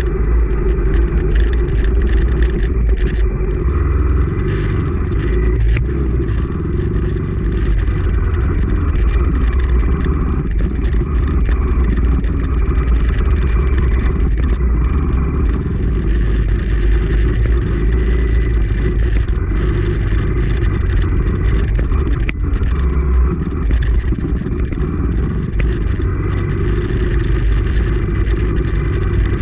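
Honda CRF250F's single-cylinder four-stroke engine running and revving up and down while riding a trail, with frequent short knocks and clatter over rocks and roots.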